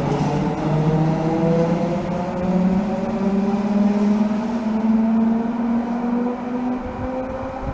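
ÖBB class 4020 electric multiple unit accelerating away, its traction drive humming in several tones that rise slowly in pitch, the sound easing off toward the end as the train recedes.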